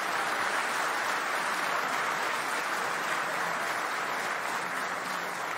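Steady applause from a large audience in a big hall, easing off slightly near the end.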